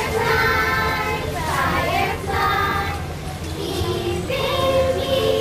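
Children singing a song from a stage musical, with musical accompaniment and held notes.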